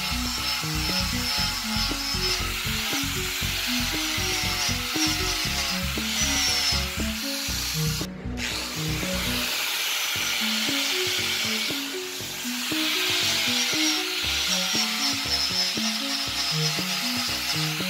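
Angle grinder with a buffing pad polishing a stainless steel pipe: a steady motor whine with the hiss of the pad rubbing on the metal, breaking off briefly about eight seconds in. Background music plays throughout.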